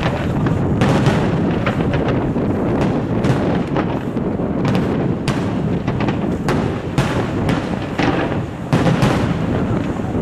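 Aerial firework shells bursting in quick succession: sharp bangs, one or two a second, overlapping over a continuous low rumble of explosions.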